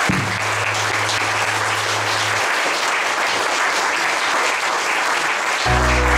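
Audience applauding, a dense steady patter of many hands clapping. Near the end, closing background music comes in under the applause.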